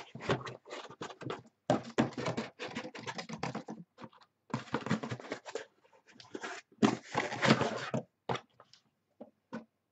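Cardboard case of trading-card boxes being handled and opened: cardboard scraping and rustling against the boxes inside in a run of short scratchy bursts, thinning to a few light knocks near the end.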